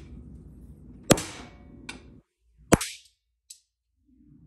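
Hammer striking a steel punch twice, about a second and a half apart, each blow sharp with a brief ring, driving plugs into the unused governor ports of an aluminium overdrive piston housing.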